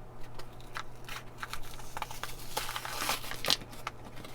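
Padlock packaging being opened by hand: irregular crinkling and tearing with scattered sharp clicks.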